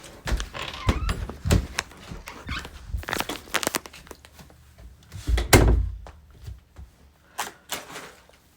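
Irregular knocks, clicks and thuds of things being handled in a small room, the loudest a heavy thud about five and a half seconds in.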